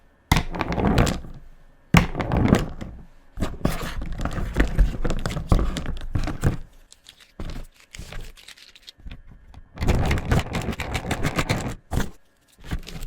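Felt-tip markers scratching across paper in repeated bursts of colouring strokes, with sharp taps and knocks as the pens are handled and set down.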